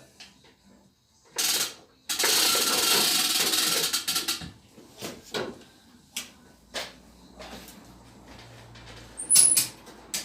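A winch running for about two seconds, a loud dense mechanical whirr, followed by scattered knocks and clanks from the lifting tackle and a short high-pitched squeak near the end.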